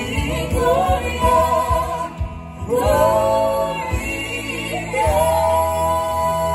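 Music with singing: a voice sings a melody, holding its last two notes long over a steady low accompaniment.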